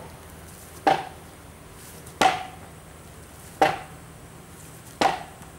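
A basket-hilted sword striking a padded pel four times in a steady rhythm, about a second and a half apart; each blow is a sharp hit with a short ringing tail.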